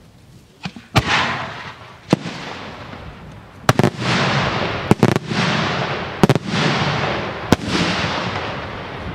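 Italian multi-break daylight salute shells bursting overhead: about ten sharp, loud bangs, several in close pairs, each trailing off in a long echo.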